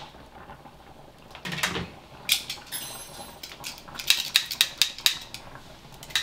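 Cookware and utensil clatter at a stovetop: scattered sharp clicks and knocks of a frying pan and kitchen utensils, with a quick run of clicks in the second half.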